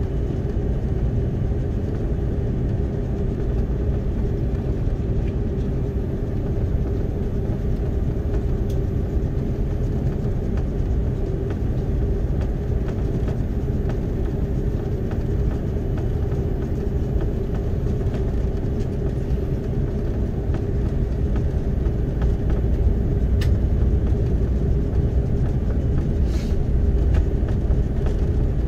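Steady rumble of an Airbus A330-300's engines and airframe heard inside the passenger cabin, with a constant hum over the low noise. It grows slightly louder about three quarters of the way through.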